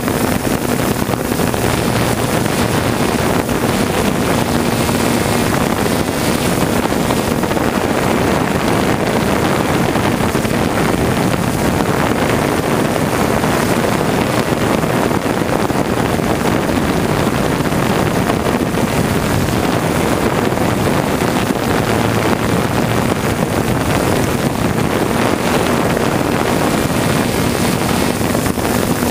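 3DR Solo quadcopter's motors and propellers running steadily, heard from the camera mounted on the drone itself, with a faint tone that wavers a little as it manoeuvres, mixed with wind noise on the microphone.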